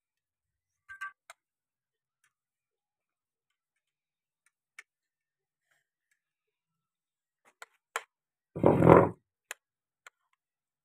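A metal spoon clicking and scraping against a ceramic plate now and then, a few sharp clicks spread out. About three-quarters of the way in, a louder, muffled thump lasting about half a second.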